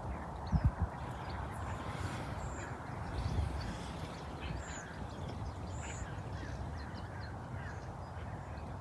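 Birds calling, with short scattered notes over a steady low rumble and hiss of outdoor air, and a couple of low bumps about half a second in.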